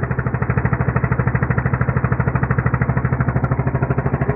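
Small gasoline engine of a motorized fishing boat running steadily, with a fast, even putter.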